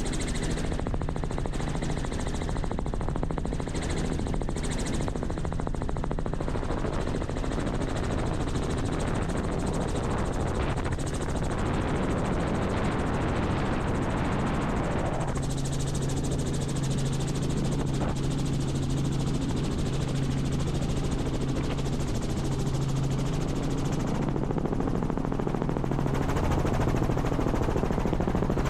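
Robinson R44 Raven II helicopter in flight: continuous rotor and piston-engine noise with a rapid beating. About halfway through, the hiss eases and a steady low hum comes to the fore.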